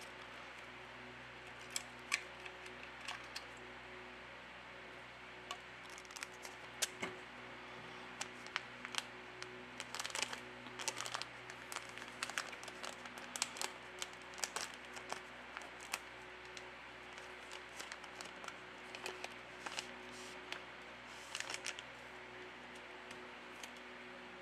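Tools and small phone parts being handled during a smartphone repair: scattered light clicks and taps, busier from about six seconds in, over a faint steady hum.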